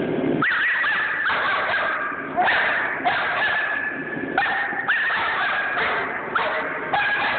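Young German shepherd barking in a series of high-pitched, yelping barks, about one every half second to second, while lunging on the leash toward a protection-training helper.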